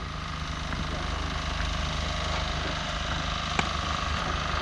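A steady low engine rumble, growing slowly louder, with a single short click about three and a half seconds in.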